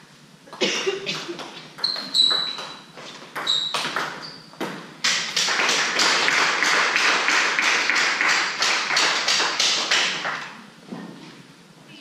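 Spectators in a sports hall applauding for about five seconds after a table tennis point, the clapping fading away near the end. It is preceded by a few scattered sharp claps and taps and a short shout.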